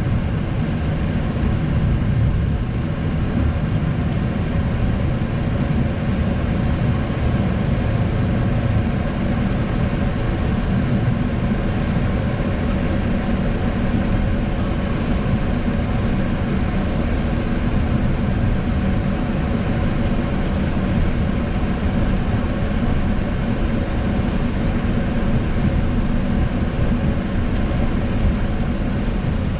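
Steady flight-deck noise of a Boeing 737-800 taxiing on a wet runway with its CFM56-7B engines at idle: a constant low rumble and hum with an even hiss above it.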